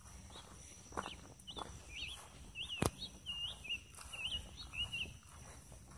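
A songbird singing a quick series of short, twisting high chirps, with a single sharp click near the middle and a couple of fainter knocks earlier.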